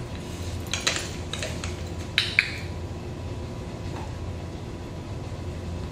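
A few light clicks about a second in, then a sharp double click a little over two seconds in, typical of a dog-training clicker being pressed and released to mark the puppy's sit. A steady low room hum runs underneath.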